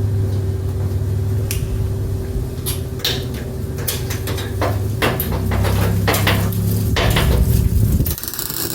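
Welder crackling and sputtering in short, irregular bursts as a steel patch panel is welded into a pickup bed, over a steady low electrical hum.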